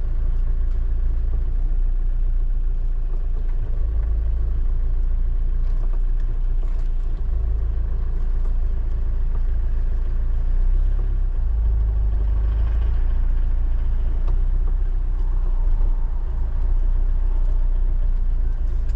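Car heard from inside the cabin while driving slowly: a steady low rumble of engine and road that swells and eases every few seconds.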